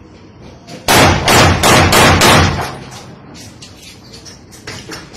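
Pistol fired about five times in quick succession, roughly three shots a second, with the reports fading out. A few faint clicks follow near the end.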